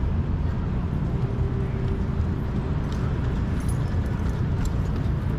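Steady low rumble of city street traffic, with a few faint light clicks in the second half.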